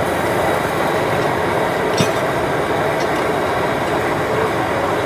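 Steady rushing noise at a street-food wok station as a large wok of rad na gravy with pork meatballs simmers and is stirred with a steel ladle; the ladle clinks once against the wok about two seconds in.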